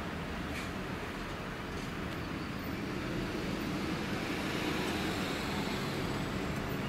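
Steady distant rumble that swells a little around the middle.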